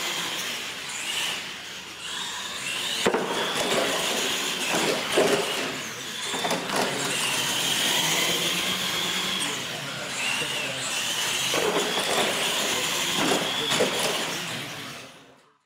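Radio-controlled monster trucks racing on a concrete floor, their motors and drivetrains whining and rising and falling in pitch with the throttle, with a few knocks from the trucks. The sound fades out near the end.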